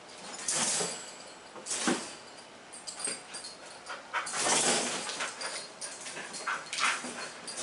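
A border collie and a larger white dog playing through a wire exercise pen: a few short bursts of dog vocalizing and scuffling, the longest and loudest about halfway through.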